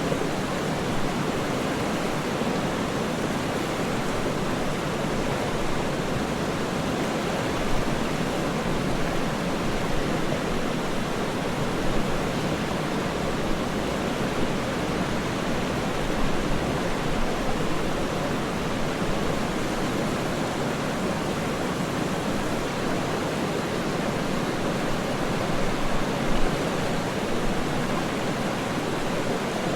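Waterfall: steady, even rushing of falling water, with small brief swells in level.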